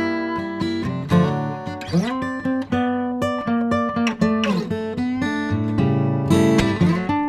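Background music: acoustic guitar, plucked and strummed, with sliding notes.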